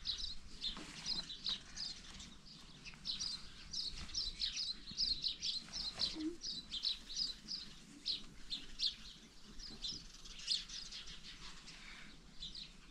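Small birds chirping: a dense run of short, high chirps, several a second, thinning out near the end.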